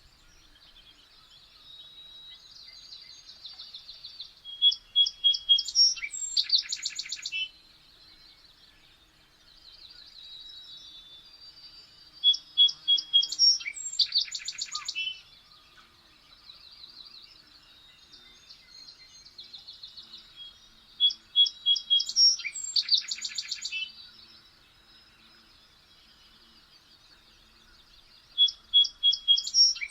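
A songbird singing the same phrase over and over, about every eight seconds. Each phrase starts with a thin, high trill and builds to a loud, rapid run of notes.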